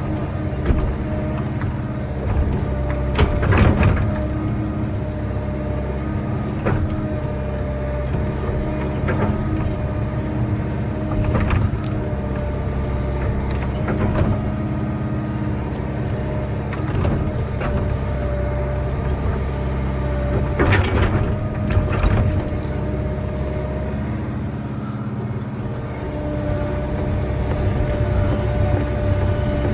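Diesel engine of a piece of earthmoving equipment running steadily under work, with short metallic clanks and squeaks from the machine now and then, most noticeably a few seconds in, around the middle and twice about two-thirds of the way through.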